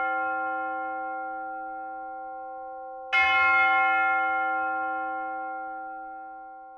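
A bell ringing: the ring of one stroke dies away, then a second stroke comes about three seconds in and rings on, fading near the end.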